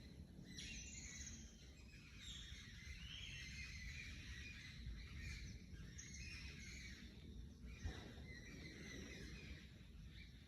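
Several forest birds singing, faint overlapping chirps and warbling phrases one after another, over a steady low rumble. A single sharp knock about three-quarters of the way through.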